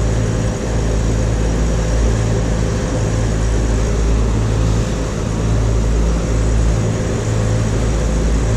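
Motor cruiser's engines running steadily underway: a constant low drone, with an even hiss of wind and water over it.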